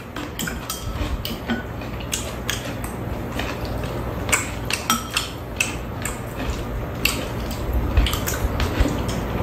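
Metal chopsticks and spoons clicking and clinking against bowls and a metal tray while eating, many small irregular clicks.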